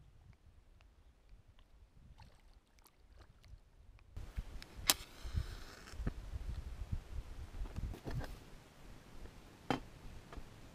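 Wind buffeting the camera microphone as an uneven low rumble that starts about four seconds in. Scattered sharp clicks and knocks from handling sound over it, the loudest about five seconds in and another near the end.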